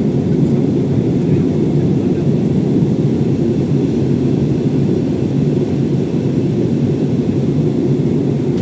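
Steady low rumble of airliner cabin noise, engines and airflow heard from inside the cabin during the descent.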